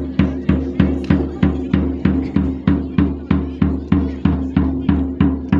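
Steady marching drum beat for a march-past: bass and snare struck together about three times a second.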